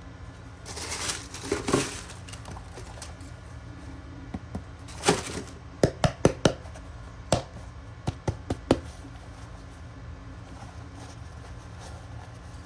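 Handling noises close to the microphone over a steady low hum: a brief rustle, then a scattered run of sharp taps and clicks.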